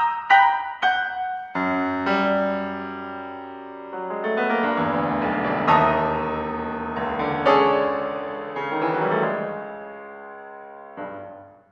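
Piano playing contemporary classical music: a few short struck chords, then a held chord that opens into a denser, busier passage and dies away, with one brief last chord before it falls silent.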